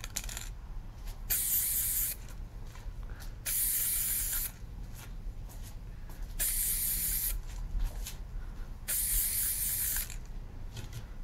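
Aerosol can of spray paint hissing in four short bursts of about a second each, with short pauses between them, as a coat of paint goes on.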